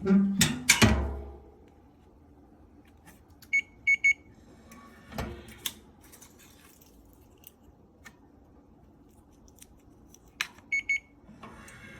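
BlumSafe Keypad 2.0 electronic safe keypad giving three short high beeps, twice, about seven seconds apart, with single clicks just before each group. Loud knocks and clicks from the lock and door in the first second and a half, and another knock about five seconds in.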